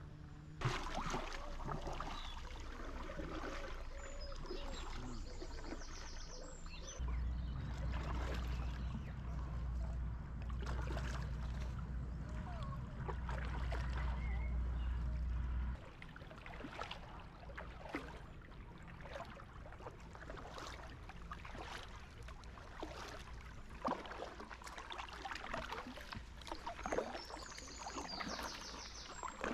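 Kayak paddle dipping and pulling through calm river water, with splashes and drips off the blades, and a few bird chirps. A steady low rumble runs through the middle stretch and cuts off suddenly.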